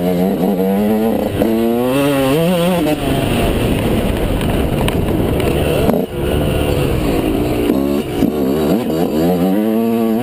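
Yamaha YZ125 two-stroke single-cylinder engine heard from on board the bike, revving hard and climbing up through the revs several times as it is ridden through the gears, with a brief throttle cut about six seconds in.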